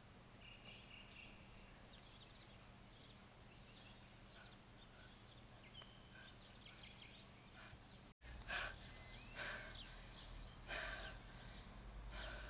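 Quiet outdoor ambience with faint, scattered bird chirps. After an abrupt cut about eight seconds in, a few louder breathy puffs close to the microphone, roughly a second apart.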